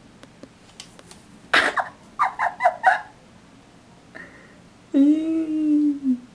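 A person's voice off-camera: a loud breathy burst, then four quick breathy bursts, then a long drawn-out low vocal sound that falls slightly in pitch near the end. A few faint clicks come before it.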